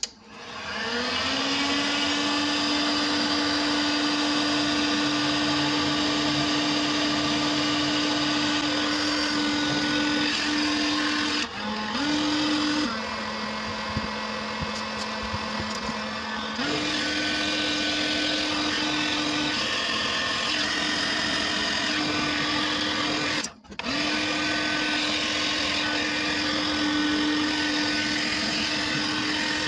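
Electric heat gun running: its fan motor spins up to a steady hum with a rush of air, heating PVC fitting sleeves so they can be pulled off. Its pitch drops for a few seconds about halfway through, and about three-quarters of the way through it cuts out briefly and starts again.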